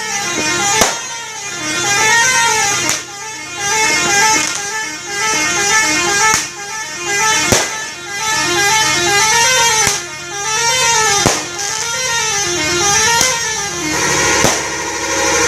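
Bus telolet horn, an electric multi-tone horn, playing its rising-and-falling tune over and over. Sharp pops break in now and then.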